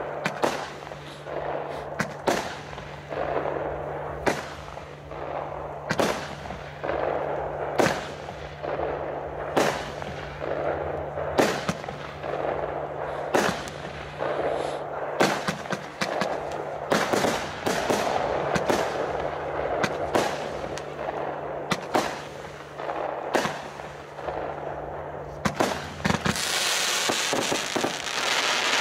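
A 27-shot, 20 mm calibre consumer fireworks battery (the Bombastica) firing one shot after another, about one a second. Each shot is a sharp bang of launch and aerial burst, with crackling between shots, and near the end comes a dense crackling hiss.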